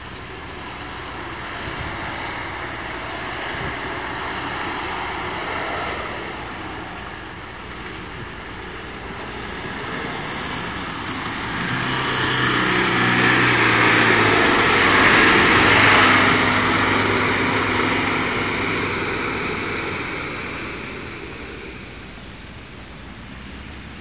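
A 4x4's engine running as it drives through a river ford. It grows louder as the vehicle approaches, with water splashing loudest about halfway through, then fades as it pulls away.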